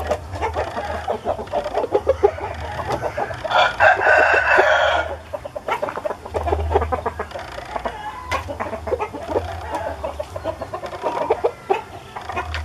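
Roosters clucking throughout, with one rooster crowing once, about four seconds in, as the loudest sound.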